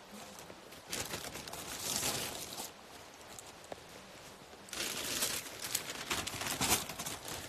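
Clear plastic packaging crinkling and rustling as a shrink-wrapped magazine and skeins of yarn are handled, in two spells: about a second in and again from about five seconds in.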